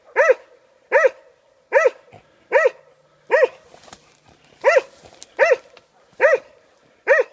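A dog barking in a steady rhythm, nine barks about one every 0.8 seconds, as a hunting dog bays at a wild boar piglet hidden in the reeds.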